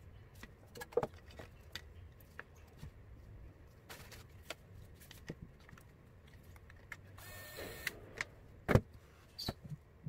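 Scattered light clicks and knocks, with a short hiss a little past the middle and one louder knock near the end.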